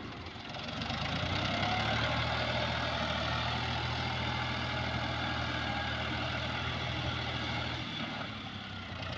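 Diesel tractor engine running steadily, coming up about a second in and easing slightly near the end.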